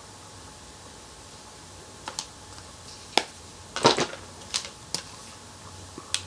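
A scattered series of sharp clicks and taps, about eight, starting about two seconds in with the loudest cluster near the middle, from makeup tools being handled: a brush and an eyeshadow palette picked up and knocked against each other.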